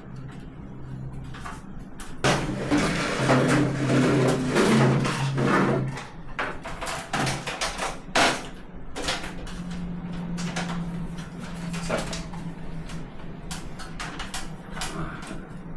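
Knocks, clicks and scraping from handling work while a water heater is being fitted. A louder stretch with a steady low hum comes about two seconds in and lasts some four seconds, and a fainter hum comes again around ten seconds in.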